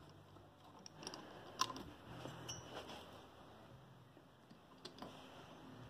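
Faint, scattered small clicks and ticks of a screwdriver and metal carburetor parts being handled while screws are driven in, with one sharper click about one and a half seconds in.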